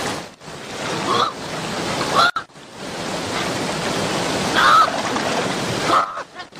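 Rushing river rapids, a steady rush of water, with about five short rising high-pitched animal cries over it.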